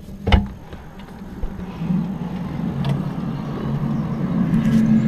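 A steady, low droning hum that grows louder from about two seconds in, after a short knock at the start.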